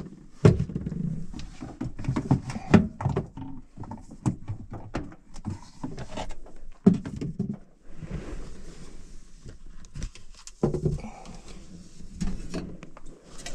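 Plastic bottles of cleaning products being lifted out of and set down inside a wooden under-sink cabinet: irregular knocks and clunks with handling noise.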